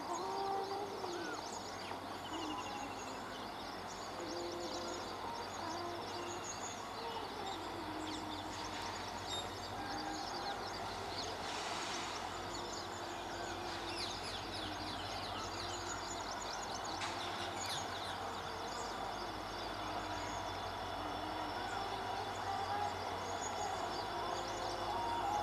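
Birds chirping and calling many times, short whistled notes, over a steady low rumble.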